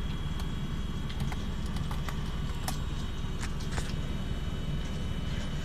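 Computer running with an uncovered Maxtor 7120AT hard drive: a steady low hum and a faint steady high whine, with light irregular clicks scattered through.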